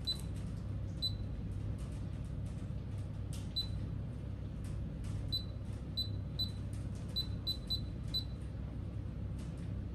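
Hantek DSO2D15 digital oscilloscope's front-panel keys being pressed, each press a small click followed by a short, high key beep, about ten presses at uneven intervals, bunched up in the second half. The beeps confirm each key press as the menu soft keys are stepped through.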